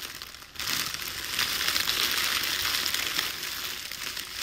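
A recording of plastic being crunched and crinkled, played back after being normalized to −6 dB. It is a dense crackling rustle with little low end, and it grows louder about half a second in.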